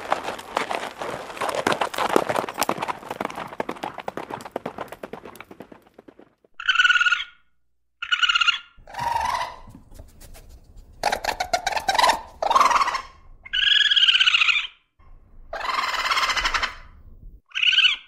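A horse's long, rough, pulsing call that dies away about six seconds in. Then a red fox calling over and over: short, pitched yelping barks, about nine of them, each under a second.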